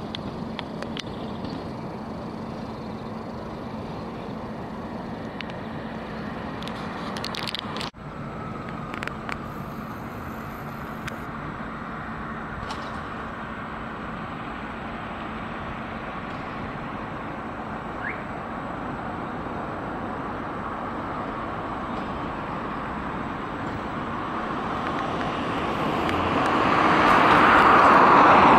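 Steady street traffic noise with a low hum, briefly broken about eight seconds in; then a Tatra T3 tram approaches along the rails, its running noise growing louder toward the end.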